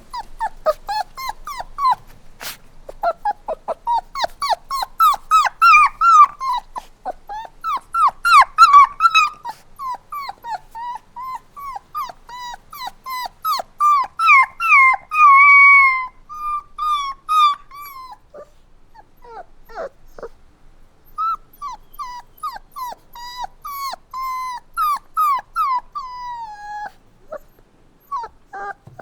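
Puppies crying: a rapid run of short, high-pitched whimpers and whines, several a second, with one longer drawn-out whine about halfway through.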